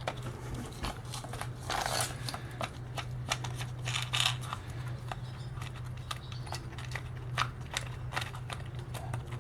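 Parts being handled by hand: scattered light clicks and rattles and a few short rustles, likely a car window regulator assembly being turned over and fitted. A steady low hum runs underneath throughout.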